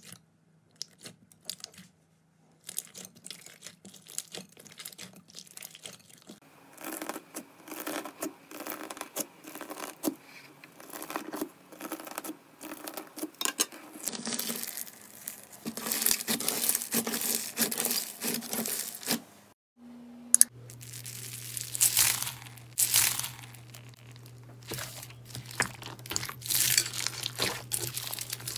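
Hands squeezing, stretching and pressing slime: a dense run of sticky clicks, crackles and tearing sounds, growing louder after the first few seconds and changing character abruptly where clips cut, about halfway and again around two-thirds of the way in. In the last part, foam beads mixed into the slime crunch under the fingers.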